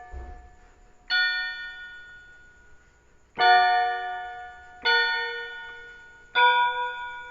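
Bell-like electronic chime tones of an alert sound. Four notes are struck, the first about a second in and the rest roughly a second and a half apart, each ringing and fading away.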